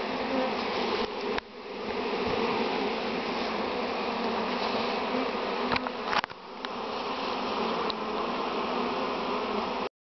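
A captured swarm of honeybees buzzing en masse over an open hive box: a dense, steady hum, broken by short knocks about a second and a half in and again around six seconds in.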